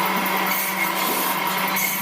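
Electric woodworking power tool running steadily while cutting wood, with a constant motor hum under the noise of the cut.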